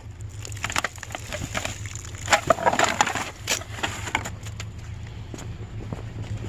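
Irregular knocks and clatter of junk being shifted and pulled from a curbside trash pile, densest around two to three seconds in, over a steady low hum.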